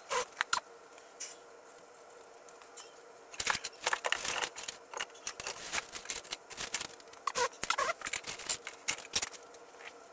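Clicks, taps and light rustling of small objects being handled on a workbench: two sharp clicks right at the start, then a dense, irregular run of clicks from about a third of the way in. A faint steady hum runs underneath.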